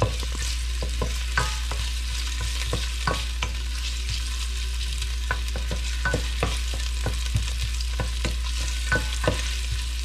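Ginger strips sizzling in hot olive oil in a stainless steel pot while a wooden spoon stirs them, with irregular sharp taps and pops from the spoon and the spitting oil. A steady low hum runs underneath.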